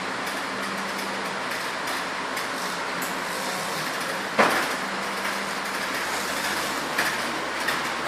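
Machinery running with a steady hiss and a faint hum. A single sharp metallic clank comes about four seconds in, and lighter knocks follow near the end.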